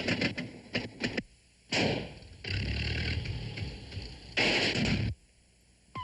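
Animated-cartoon sound effects: a quick run of clattering knocks, then, after a short pause, bursts of rushing noise over a low rumble, the loudest burst near the end.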